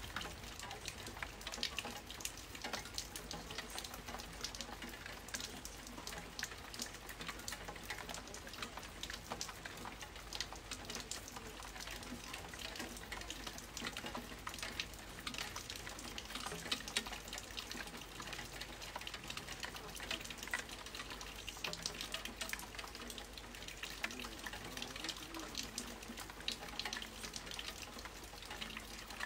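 Steady rain falling during a thunderstorm, with many small drop hits crackling close by and no thunder.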